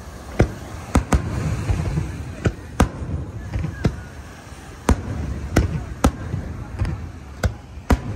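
Aerial firework shells launching and bursting in an irregular series of sharp bangs, about a dozen, some coming in quick pairs.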